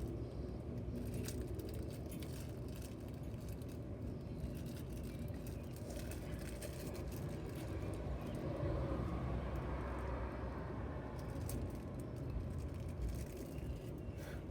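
Small plastic packaging crinkling and rustling with scattered crackles as a fidget toy's bag is handled and opened, over a steady low outdoor rumble.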